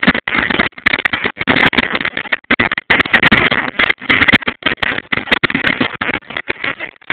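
YN27-series gasoline rock drill, a single-cylinder two-stroke hammer drill, running under load and hammering its steel bit into a granite-like stone block. The drilling makes a loud, harsh racket that cuts in and out in choppy stretches.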